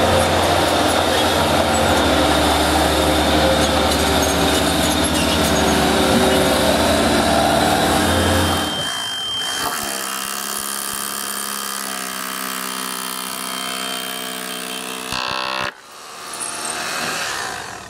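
Motorized equipment running steadily, with the sound changing abruptly twice: to a quieter, differently pitched machine about halfway through, then again near the end.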